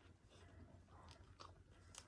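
Faint chewing and wet mouth clicks of a person eating pork curry with rice, close to the microphone.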